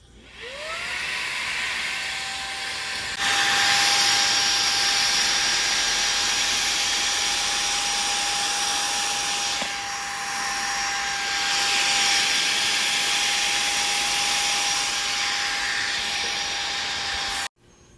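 Handheld mini vacuum switched on, its motor whine rising as it spins up, then jumping louder about three seconds in and running steadily with a high whine over an airy hiss as it cleans dust off a book's page edges. It switches off suddenly near the end.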